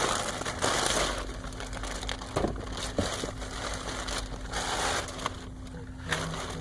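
Plastic and paper packaging rustling and crinkling with scattered sharp clicks as a package is unwrapped by hand, over a faint steady hum.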